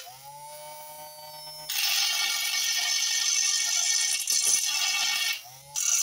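Small hand-held DC motor with an abrasive disc on its shaft, grinding the welded steel lathe bed to level it. It first spins up freely with a rising whine that settles. About two seconds in, the disc bites the steel with a loud, harsh grinding hiss. It lifts off briefly about five and a half seconds in and bites again near the end.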